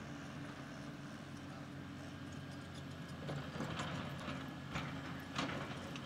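Cat 330D L hydraulic excavator's diesel engine running steadily under work while it digs and lifts a bucket of dirt. From about three seconds in come a series of clanks and knocks from the bucket and its linkage, the loudest near the end.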